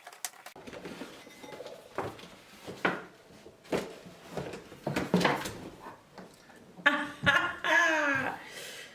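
Crinkling and clicking of a stapled gift hamper's wrapping being pulled open by hand, a string of short irregular clicks. Near the end a woman's voice gives a short wordless exclamation with a falling pitch.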